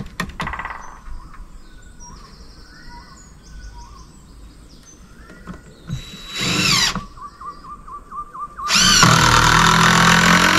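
Power drill driving screws into trim boards: a short whir about six seconds in, then a longer, louder run near the end, each spinning up with a rising whine. Birds sing in between.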